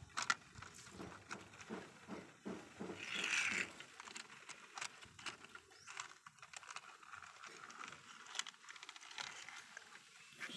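Small die-cast toy cars clicking and clattering against the plastic deck of a toy car-carrier truck as they are set down and pushed into line, in a run of irregular light taps.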